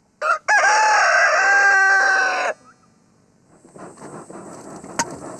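Domestic rooster crowing once, one long loud cock-a-doodle-doo lasting about two seconds, followed by a quiet stretch. A single sharp knock sounds near the end.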